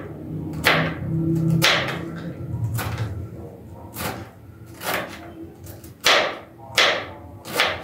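Kitchen knife chopping through shredded red cabbage on a tray: sharp, crisp cuts at irregular intervals, roughly one a second.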